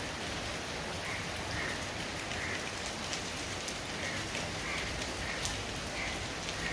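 Steady rain falling, with scattered louder drips close by.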